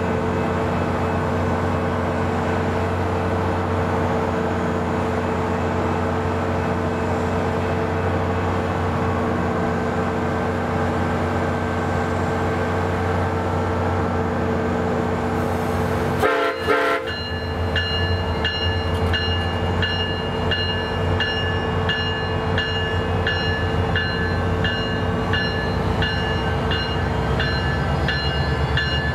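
SunRail MP32PH-Q diesel locomotive idling steadily at the platform. A little past halfway there is a short horn sound, then the locomotive bell starts ringing in steady repeated strokes and the diesel engine throttles up as the train starts to pull out.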